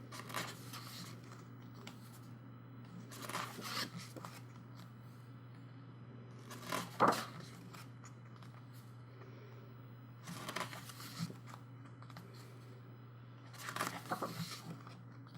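Pages of a K-pop album's photo book being turned by hand: five short paper rustles about every three to four seconds, the loudest about seven seconds in, over a steady low hum.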